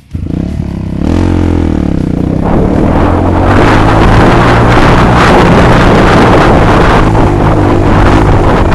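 Kawasaki D-Tracker supermoto's single-cylinder engine revving hard under load while climbing a steep dirt trail, its pitch rising about a second in. After that it runs loud and steady under a heavy rushing noise on the helmet-camera microphone.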